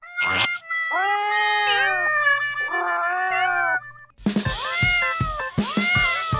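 A cat meowing, about three drawn-out meows, followed about four seconds in by bouncy music with a beat.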